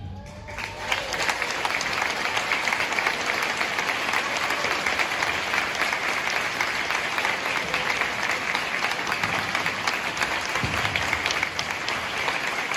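The concert band's last chord dies away in the gym's echo, and under a second in the audience breaks into applause that goes on steadily.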